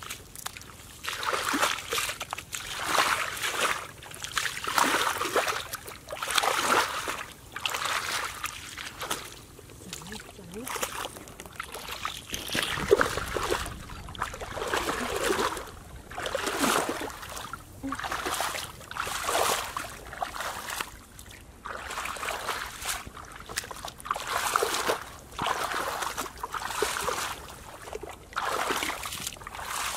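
Footsteps wading through shallow muddy water, a splash and slosh with each step, about one a second.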